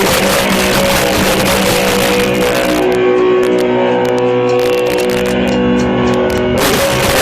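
Live rock band with distorted electric guitar, recorded loud and harsh. About three seconds in it thins to held guitar notes, and the full band crashes back in near the end.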